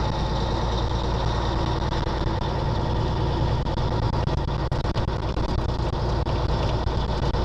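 Caterpillar diesel engine of an early-1980s Peterbilt long-nose truck running steadily under way, heard from inside the cab.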